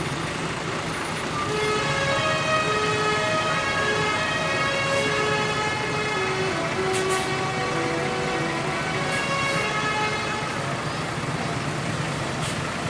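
Basuri musical bus horn playing a tune of held notes that step up and down in pitch, starting about a second and a half in and ending near ten seconds, over a steady low engine hum.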